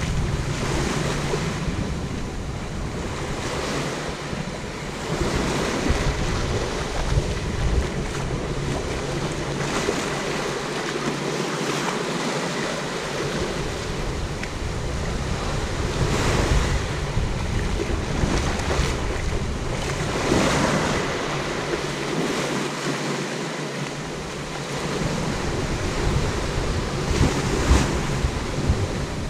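Small Indian Ocean waves breaking and washing up the beach in slow surges, with wind rumbling on the microphone that eases off twice for a few seconds.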